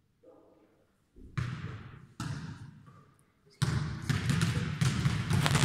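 Many basketballs bouncing on a hard gym floor, ringing in a large hall: two sudden loud bouts that die away, then from about three and a half seconds in a dense, continuous clatter of bounces.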